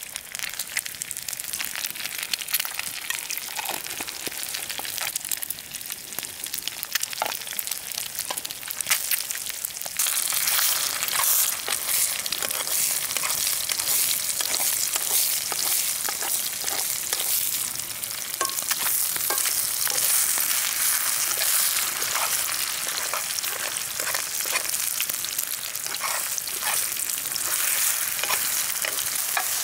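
Eggs sizzling in a steel frying pan, getting louder from about ten seconds in. A metal spoon stirs and scrambles them, with short clicks and scrapes against the pan.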